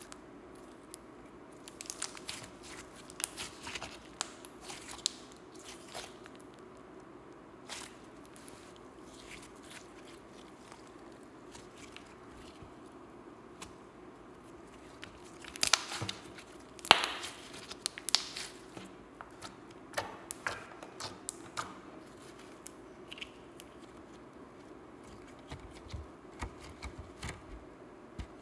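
Hands kneading, stretching and squeezing sticky slime: irregular wet clicks, pops and crackles, loudest in a cluster about halfway through.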